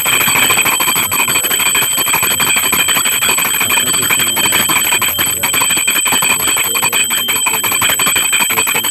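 Brass puja bell rung rapidly and without pause during worship at the shrine, a loud, bright, steady jangling ring.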